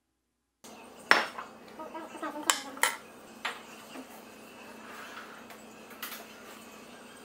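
Small ceramic dishes clinking on a wooden cutting board: one sharp clink about a second in, then several lighter clinks spread through the next few seconds.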